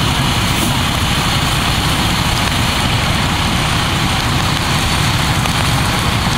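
A fire engine's diesel engine running steadily as it pumps water to a hose stream, with a constant rushing noise over it.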